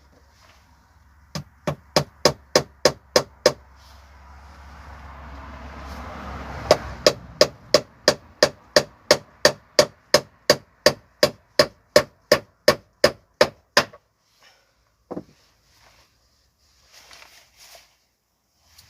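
Hammer blows at a steady pace of about three a second, in a short run of about seven and then, after a pause filled by a swelling hiss, a longer run of about twenty, consistent with driving nails into a wooden bird feeder.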